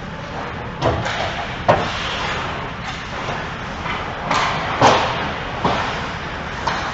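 Ice hockey play in an echoing indoor rink: about six sharp knocks of sticks and puck, spread through the span, with skates scraping the ice between them.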